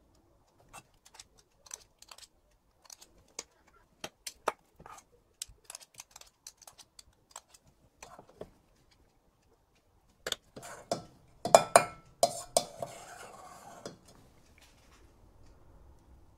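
Metal spoons clicking and scraping against each other and against a stainless steel bowl and pot while fish forcemeat is shaped into quenelles with two spoons. There are scattered light clicks at first, then a louder run of clatter and scraping about ten seconds in.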